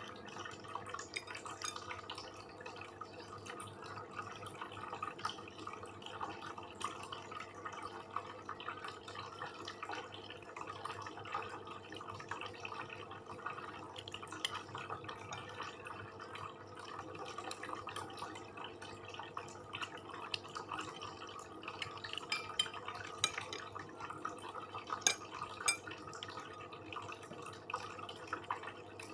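Close-up eating sounds: wet chewing and small mouth clicks from a person eating satay and rice with gulai curry, with occasional light clinks, scattered irregularly.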